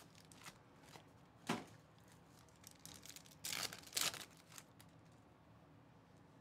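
Foil wrapper of a Topps Chrome baseball card pack being torn open and crinkled, loudest about three and a half to four seconds in, after a single sharp tap about a second and a half in.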